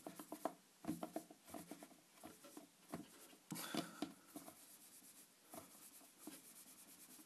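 Play dough being rolled out thin on a tabletop: soft, irregular taps and rubbing.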